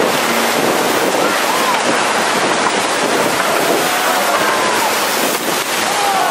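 Colorado River whitewater rapids rushing and splashing against a raft, a loud steady wash of water with wind on the microphone. Faint voices call out over the water.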